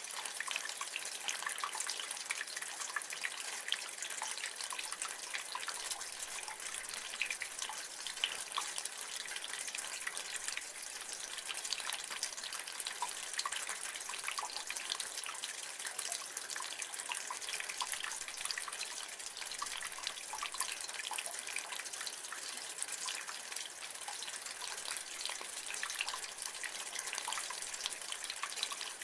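Rainwater running off a gutter, a steady splashing hiss with many small drips and ticks scattered through it.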